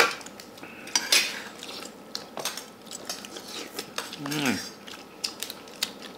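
A metal spoon clinking and scraping against a stainless steel bowl while eating. There are sharp clinks at the start and about a second in, then lighter clicks and scrapes.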